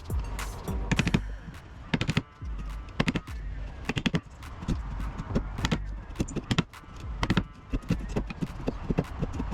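Irregular knocks and clacks, several a second and uneven in strength, over a low steady hum.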